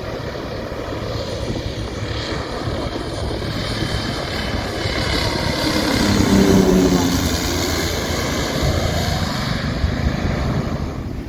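A landing airliner's jet engines passing low overhead. The sound swells to its loudest about six seconds in, with a deep hum and a high whine, then slowly fades.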